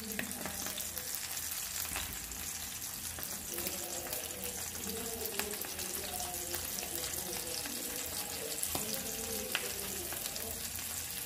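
Dried salted fish (tuyo) frying in a shallow layer of hot oil in a pan: a steady sizzle with scattered pops and crackles.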